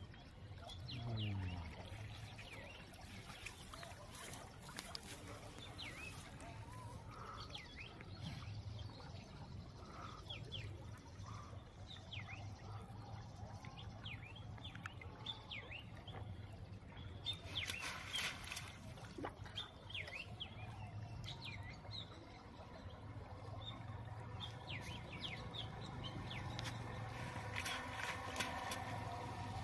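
Small birds chirping on and off, with the water splashing and dripping as a wet cast net is drawn in, in two louder bursts: about two-thirds of the way in and near the end.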